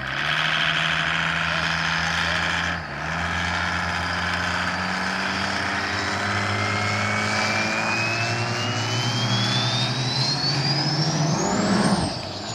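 Mercedes OM606 inline-six turbodiesel with a Holset HX60 turbo pushing a speedboat at full throttle, dipping briefly about three seconds in. A high turbo whistle climbs steadily in pitch to a peak near the end, where the engine is loudest, then falls away as the boat spins out.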